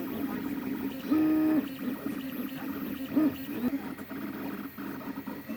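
Anet A8 3D printer running a print: a steady hum from its stepper motors and fans, with a louder, pitched stepper tone lasting about half a second just after a second in and a shorter one a little after three seconds.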